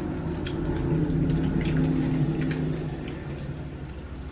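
Eating sounds of fried chicken being chewed off the bone: scattered wet smacks and clicks of chewing, over a low steady hum that fades about three seconds in.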